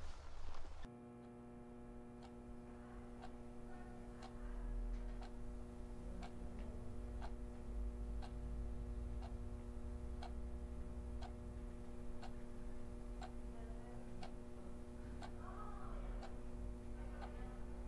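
A clock ticking about once a second over a steady drone of several held tones, which starts abruptly about a second in.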